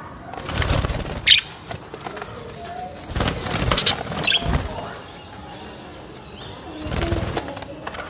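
Budgerigars flapping their wings in three bursts of fluttering, with a few short, high chirps in between.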